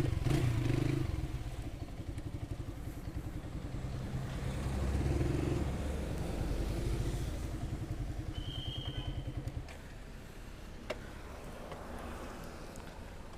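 Motorcycle engine running while riding, its firing pulses plainly heard, then dropping to a quieter, steadier sound about ten seconds in. A brief high tone sounds shortly before that drop.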